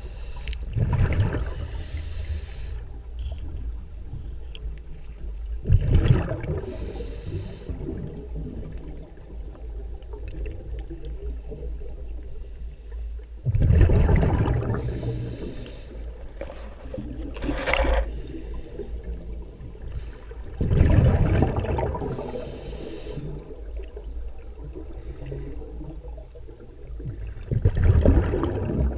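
Scuba diver breathing through a regulator underwater: a gush of exhaled bubbles about every seven seconds, five times, each followed by a short high hiss, over a steady low rumble.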